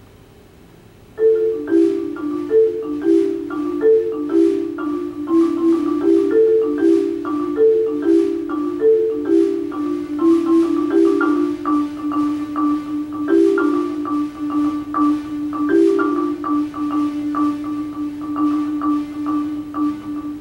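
Marimba played with mallets. About a second in, fast notes begin: a shifting figure over a steadily repeated low note, which later goes on almost alone, struck rapidly, with a few higher notes breaking in.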